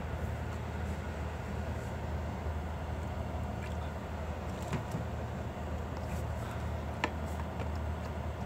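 A steady low hum under an even background noise, with two faint clicks about five and seven seconds in.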